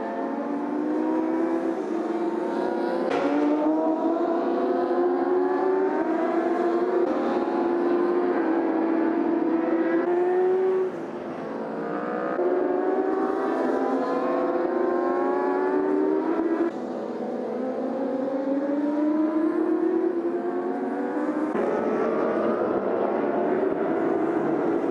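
Racing superbike engines at high revs, their pitch climbing again and again as the bikes accelerate up through the gears, more than one bike heard at once.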